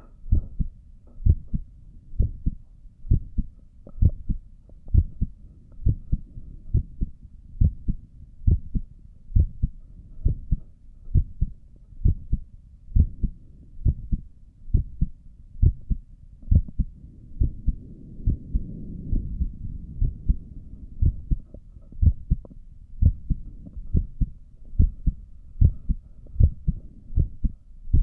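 Human heartbeat heard through a stethoscope at rest: steady, evenly spaced lub-dub thumps, about one beat a second. A few seconds of low muffled noise rise under the beats about two-thirds of the way through.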